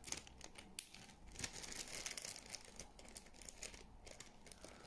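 Faint crinkling of a small plastic bag being handled, in scattered irregular crackles, as a wrapped bait goes into it.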